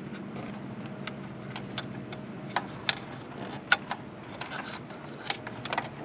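Scattered light clicks and ticks of wires and connectors being handled while the wiring inside an RV rooftop air conditioner is tidied, over a steady low hum.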